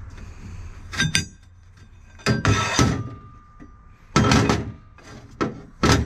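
Pieces of steel flat stock clanking against each other as they are handled: several hard knocks over the few seconds, some leaving a metallic ring.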